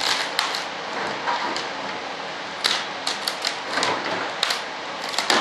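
Thin plastic model parts being handled and pulled apart on a workbench, giving irregular sharp clicks and crackles, with a quick cluster of them about three seconds in. A steady hiss runs underneath.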